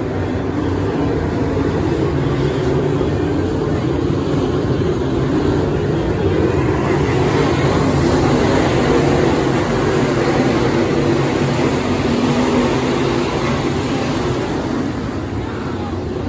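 A field of dirt late model race cars' V8 engines running together on a dirt oval as the pack comes up to speed on a green-flag restart. The sound grows louder toward the middle as the cars pass close by, then eases off near the end.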